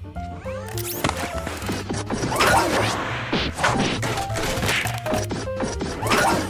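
Background music with a steady bass line, overlaid by a rapid series of cartoon crash and whack sound effects.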